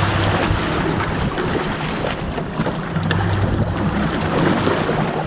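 Boat engine running steadily at trolling speed, a low hum under wind buffeting the microphone and water rushing past the hull.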